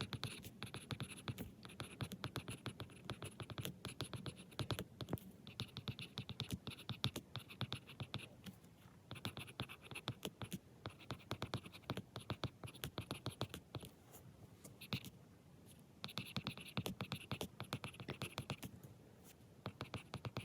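Handwriting on paper: a pen scratching across the page in quick runs of strokes, broken by short pauses.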